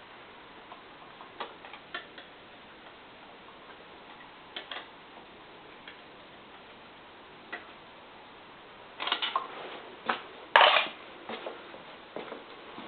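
Scattered sharp metallic clicks and clinks of a wrench at work on the drill press motor mount bolts as they are tightened to set the belt tension, with a short cluster about nine seconds in and the loudest clatter a little after ten seconds.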